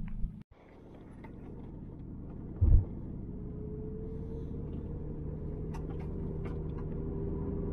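Car driving, heard from inside the cabin: steady engine and road rumble that builds gradually after a brief drop-out near the start, with one loud low thump about two and a half seconds in.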